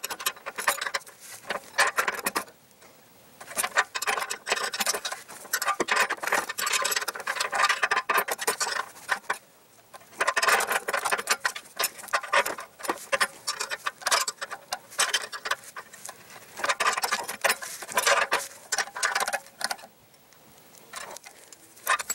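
Ratchet of a torque wrench clicking in runs of strokes with short pauses, tightening the 3/8-inch bolts of a stainless steel exhaust band clamp. The bolts keep turning without building torque past about 40 foot-pounds, which the owner takes for the bolts or the stainless mount stretching.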